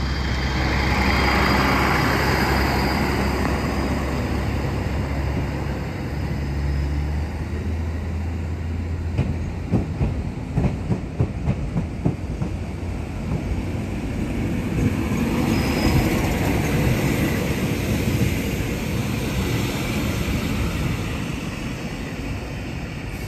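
A diesel train pulling out of the station. Its engine runs steadily at first, then about ten seconds in comes a quick run of clacks from the wheels crossing rail joints, followed by the rolling noise of the train passing.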